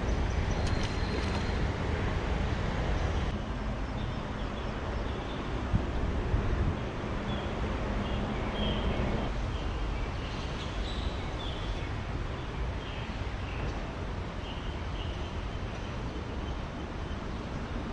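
Steady rumble of traffic on the elevated highway overpass overhead, a little louder in the first half, with faint short high chirps now and then.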